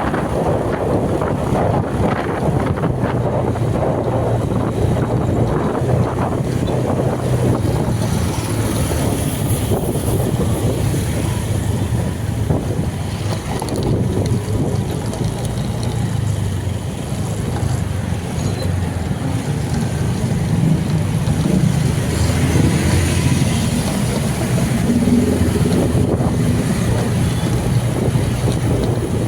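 Steady, loud vehicle rumble with wind buffeting the microphone.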